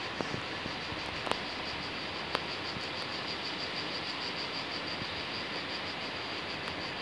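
Cicadas singing in a high pulsing drone, about five pulses a second, over a steady background hiss, with a couple of sharp clicks.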